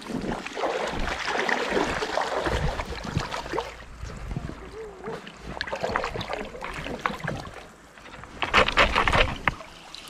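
Water splashing and sloshing as a hand scoop net is pushed and swept through a shallow stream, in uneven bouts, with the loudest burst of splashing about a second before the end.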